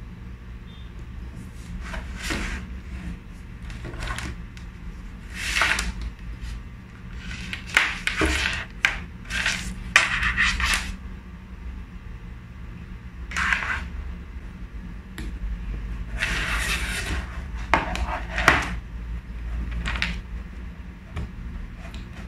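Handling noise from a plastic mini ring light and its small stand being fitted together: irregular rubs, scrapes and clicks of plastic parts, busiest in the middle. A steady low hum runs underneath.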